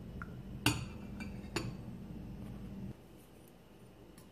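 A metal spoon clinks against a ceramic mixing bowl three times, the first the loudest, as thick yogurt is spooned into melted chocolate. A low steady hum underneath stops about three seconds in.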